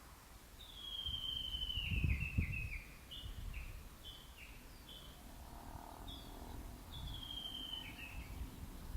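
Japanese bush warbler giving its valley-crossing call (tani-watari): a long falling whistle that breaks into quick notes, then a run of short paired notes about twice a second, then another falling whistle near the end. A low rumble of wind or handling noise runs underneath.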